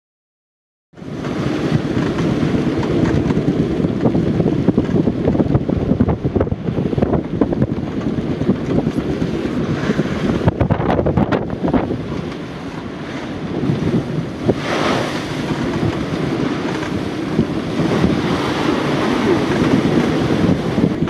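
Wind buffeting the microphone over the rush of heavy seas breaking around a sailboat offshore, starting about a second in.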